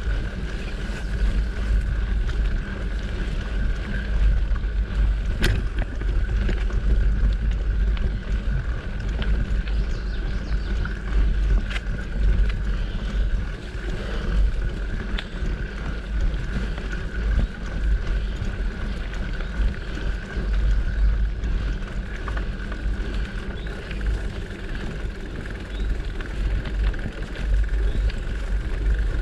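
Mountain bike rolling along a dirt singletrack: wind rumbles steadily on the microphone over the rattle of the tyres and bike, with a few sharp clicks scattered through.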